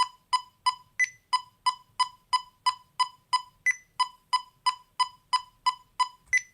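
Electronic metronome of a DeltaLab chromatic tuner-metronome beeping at 90 beats per minute in eighth notes, about three short beeps a second. Three times a higher-pitched accented beep marks the first beat of a four-beat measure. Really loud.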